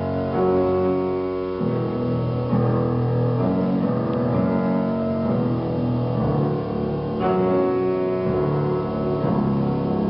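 Slow instrumental music: held chords that change a few times, with no voice.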